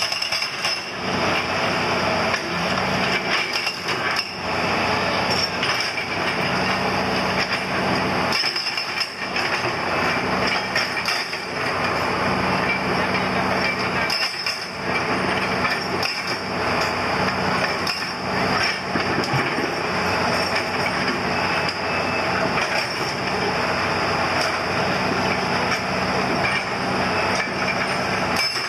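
Hydraulic rock breaker on an excavator arm hammering granite in rapid repeated blows, with a few brief pauses, over the steady running of the excavator's engine.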